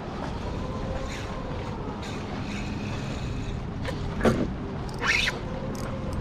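Steady wind and water noise on an open-water microphone, under a faint motor drone whose pitch sags and rises. A sharp knock about four seconds in and a short scraping rustle about a second later.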